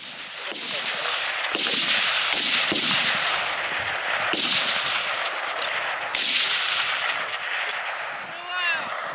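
Several Kalashnikov rifles in 7.62×39 mm, two AK-103s and an AK-104, firing a rapid run of shots, each report trailing off in a long echo.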